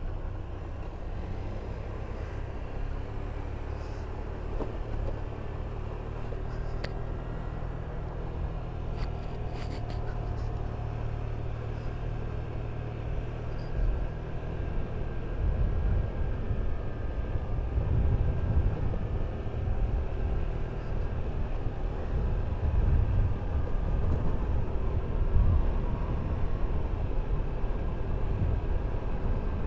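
Honda Vario 125 scooter's single-cylinder engine running at a steady cruise, mixed with tyre rumble over a rough lane and wind rumble on the microphone. The rumble gets louder and more uneven from about halfway through.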